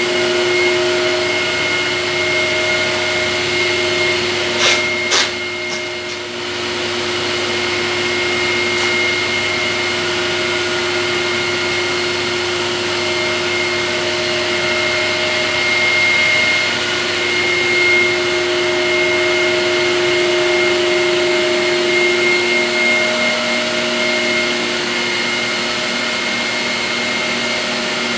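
Electric air blower running steadily, a constant whirring hum with a steady whine. There are two short clicks about five seconds in.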